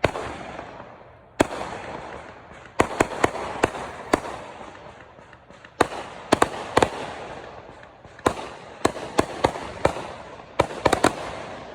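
Fireworks going off: a string of about twenty sharp bangs at irregular intervals, several in quick clusters, each trailing off in an echo.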